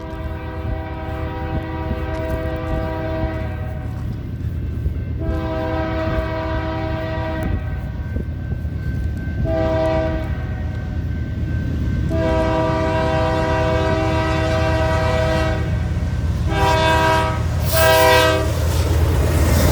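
BNSF GE C44-9W diesel locomotive's air horn blowing the grade-crossing pattern (long, long, short, long), followed by two short toots as a salute. Under the horn is the low rumble of the approaching train, growing louder.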